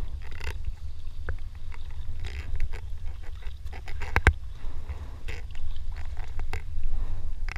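Kayak paddle strokes splashing and dripping beside a Decathlon Itiwit 1 inflatable kayak, over a steady low rumble of wind on the microphone. A single sharp knock comes a little after four seconds in.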